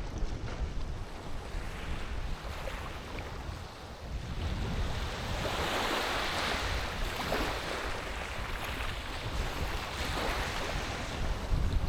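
Sea waves washing in and drawing back, two swells of surf hiss, with wind rumbling on the microphone.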